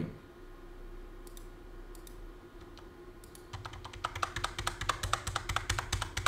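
Computer keys tapped in quick succession, several clicks a second, starting about three and a half seconds in. A faint steady hum runs underneath.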